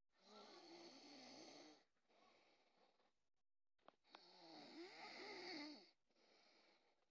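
Snoring: two long snores, each almost two seconds, about four seconds apart, with a wavering pitch. Softer breathing comes between them.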